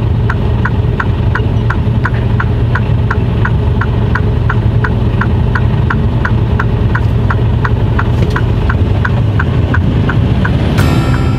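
Turn-signal indicator clicking steadily, about three clicks a second, inside a lorry cab over the truck's diesel engine idling. The clicking stops near the end and the sound changes abruptly just after.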